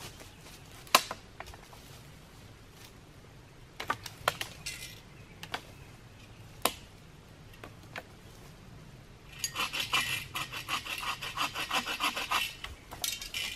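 Folding bow saw cutting through a dead wooden limb in quick, even strokes, about five a second, for about three seconds near the end. Before that come a few sharp knocks and snaps, the loudest about a second in.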